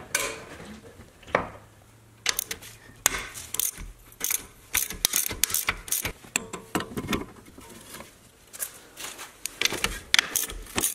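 Socket ratchet clicking in short runs, mixed with sharp metallic clinks of hand tools, as the 18 mm strut pinch bolt is loosened with a socket and wrench.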